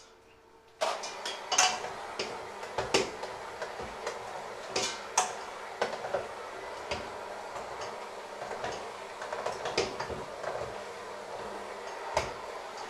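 Electric hand mixer switched on about a second in, running steadily, with its beaters clattering and knocking against a stainless steel bowl as they work through a thick potato and flour mixture.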